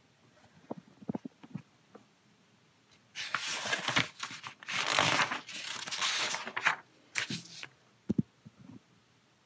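Paper instruction booklet being handled and its pages turned: a few light taps, then about three seconds in two long papery rustles as a page is swept over, and a shorter rustle and a tap near the end.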